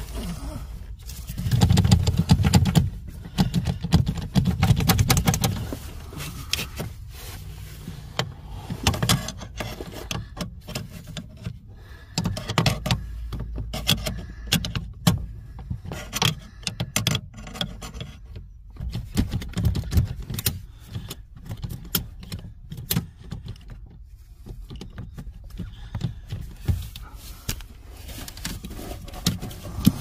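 Irregular metallic clicks, clinks and scrapes of hand tools and loose hardware being worked at a car's clutch pedal bracket under the dashboard. Close rustling and low thumps of handling are strongest in the first few seconds.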